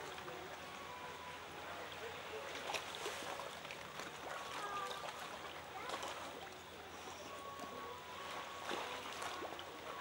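Seawater lapping and trickling, with small scattered splashes and faint distant voices.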